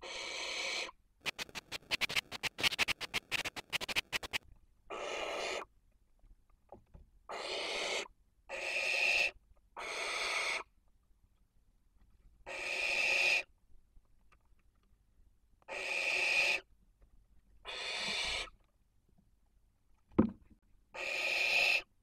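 Barn owls giving about nine long, rasping hiss calls, each roughly a second long. About a second in there is a rapid flurry of sharp clicks lasting some three seconds, and near the end a single dull thump.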